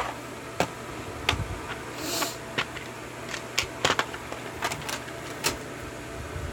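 Scattered light clicks and taps of small metal lock parts and tools being handled while a Yale 5-pin pin-tumbler lock is taken apart, about eight irregular clicks with a brief scrape about two seconds in.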